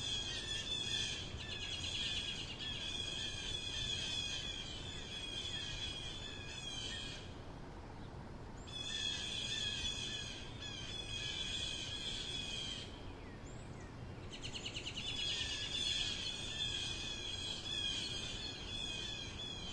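Chattering bird calls, which the recording names crow chatter, in a high, rapidly pulsing run that stops briefly about seven seconds in and again about thirteen seconds in, then resumes.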